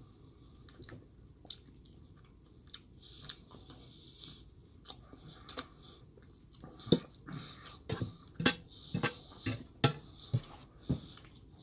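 Close chewing of a mouthful of rice and curry, then a metal fork clinking and scraping against a stainless steel bowl, with a quick run of sharp clinks in the second half that are the loudest sounds.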